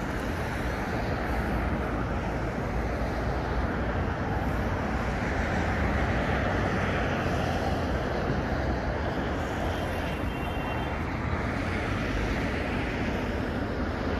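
Steady city road traffic: the continuous noise of cars and other vehicles moving along a busy street.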